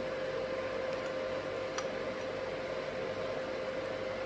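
Steady machine hum and hiss with one constant mid-pitched tone, like a cooling fan running, and a couple of faint light ticks.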